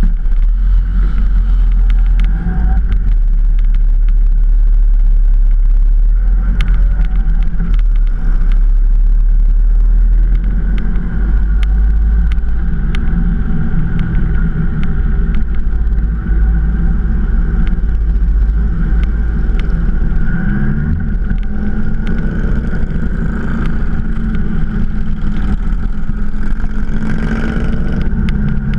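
Motorcycle engine with a deep rumble, idling at first, then revving up and down through the gears as the bike rides off through traffic.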